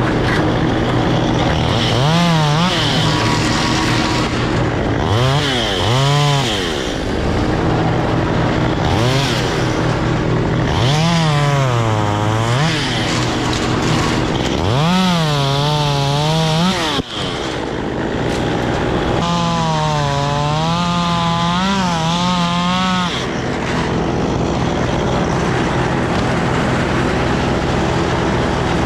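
Chainsaw revved up in about six cutting bursts, its note rising, holding and falling back each time, the longest lasting about four seconds. A steady engine hum runs underneath.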